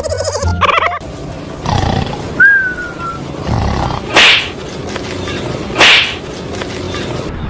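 A dog under a cardboard box growling and snarling, with two loud, harsh outbursts about four and six seconds in.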